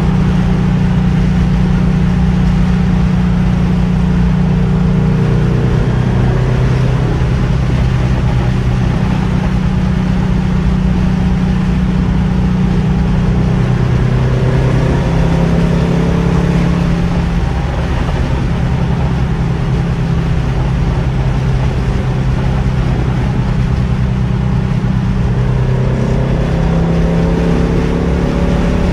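Air-cooled flat-four engine of a 1956 Porsche 356A outlaw coupe running under way, heard from inside the cabin over road noise. Its note steps down and back up in pitch several times as the car drives on.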